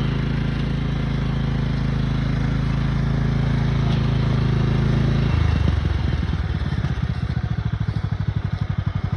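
A vehicle engine running steadily, then easing off about five seconds in to a slow, evenly pulsing idle.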